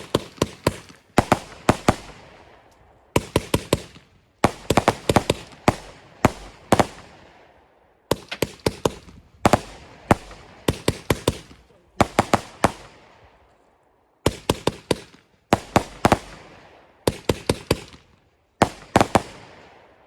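A multi-shot consumer fireworks cake firing. Volleys of three to five sharp bangs in quick succession come roughly every second and a half, each followed by a fading crackling hiss.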